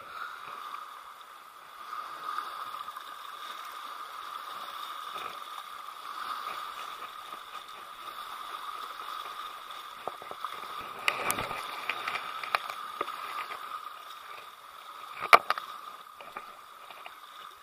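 Small wind-driven waves lapping at the water's edge, with a few sharp clicks and knocks, a cluster of them past the middle and the loudest one near the end.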